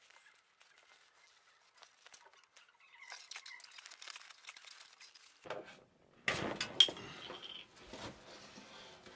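A Rover P6 car seat being pulled apart by hand: faint crackling and rustling of the old vinyl cover and crumbling foam, then, about six seconds in, a louder clatter with a sharp knock as the seat back and its metal frame are handled.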